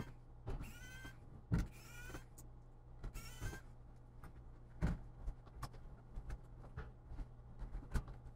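Four short high squeaks, each rising in pitch, within the first three and a half seconds, among light clicks and knocks as hands handle a laptop's plastic case and keyboard.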